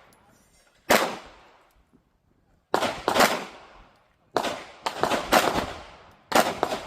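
9mm pistol shots fired at an irregular pace, about eight in all, some in quick pairs, each sharp crack followed by a trailing echo that dies away over about half a second.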